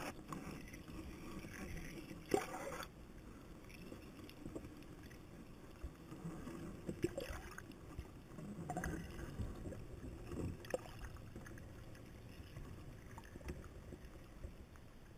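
Muffled underwater ambience heard through a camera's waterproof housing: a steady low rumble with a few short knocks and clicks scattered through it.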